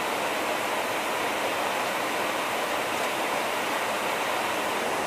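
Steady rush of airflow and engine noise heard inside a KC-135 tanker's boom operator pod in flight.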